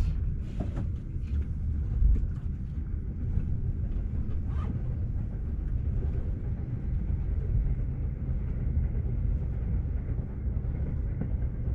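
Steady low rumble inside a Shonan-Shinjuku Line commuter train car, with a few short knocks in the first two seconds.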